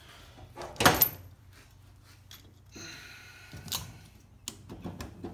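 Metal tool handling as a C-clamp valve spring compressor is set over an aluminium cylinder head: a sharp clank about a second in, a brief metallic scrape around three seconds, then a few light clicks.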